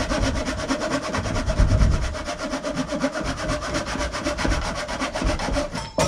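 Saw cutting through a pine timber to finish a tenon cut that the circular saw could not reach, going in fast, even strokes.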